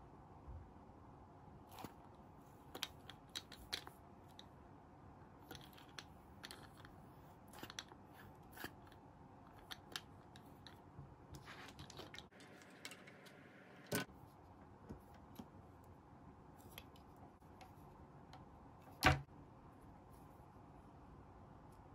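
Small hard-plastic toy pieces from a Hello Kitty toy nurse set clicking and tapping as they are handled, a toy syringe and then a toy stethoscope. Light taps come every second or so, with a short scraping stretch that ends in a click about 14 seconds in and the loudest click about 19 seconds in.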